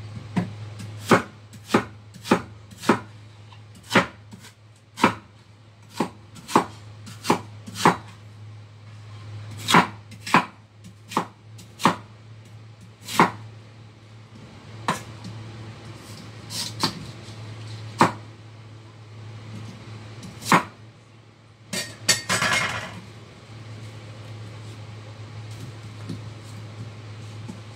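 Chinese cleaver chopping lotus root on a wooden cutting board: sharp single chops, about two a second at first, then more spaced out. A short rattling clatter comes about two-thirds of the way in, over a steady low hum.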